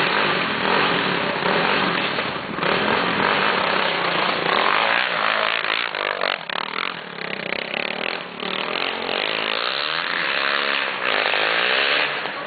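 Quad bike engine revving hard at high rpm, its pitch swinging up and down several times in the last few seconds.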